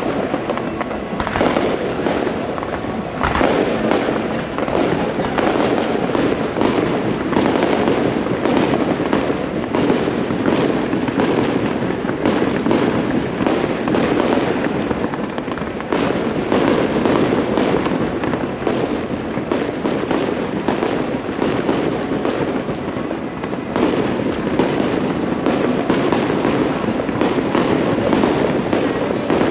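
Aerial fireworks shells bursting in quick succession, a dense, unbroken run of bangs and crackles.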